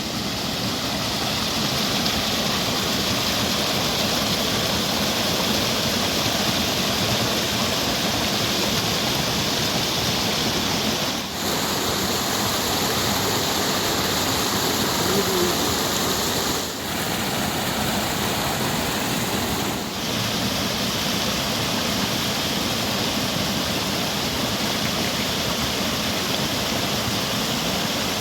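Steady rushing water, a dense even hiss, dipping briefly three times.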